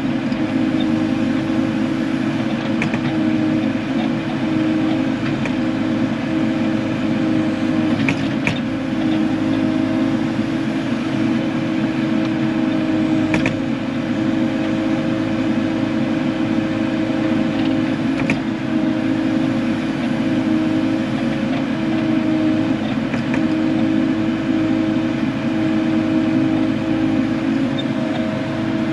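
Kubota KX080 excavator's diesel engine running steadily under load while the hydraulics work a straight-edge bucket digging a trench, with a few faint knocks from the bucket.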